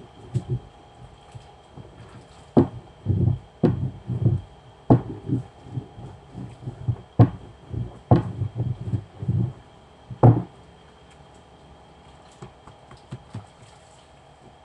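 Wooden rolling pin rolling out dough on a counter: a run of dull thumps and sharp knocks with the strokes, stopping about ten seconds in.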